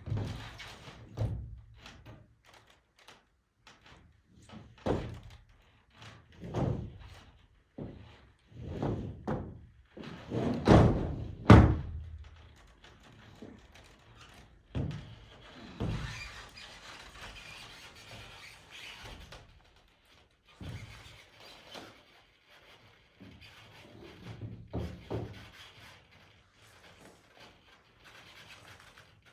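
Irregular thumps and knocks from a person moving across a greenhouse roof, heard from inside the greenhouse; the loudest thump comes about twelve seconds in.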